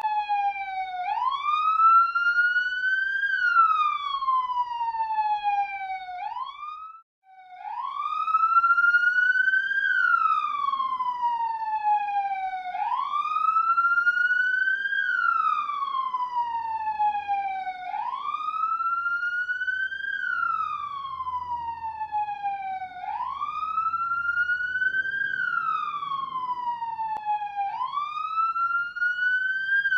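Police siren wailing, its pitch rising and falling in a slow cycle of about five seconds. It cuts out briefly about seven seconds in and starts again.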